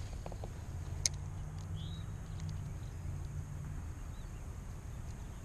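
Faint outdoor ambience: a low steady rumble, one sharp click about a second in, and a single short bird chirp a little before two seconds in.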